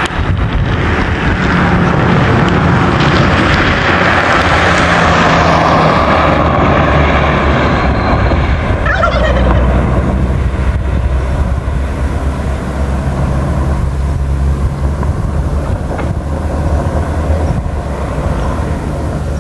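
Vehicle engine and road noise: a broad rushing hiss swells over the first few seconds and eases off after about nine seconds, over a steady low engine hum that shifts pitch a few times.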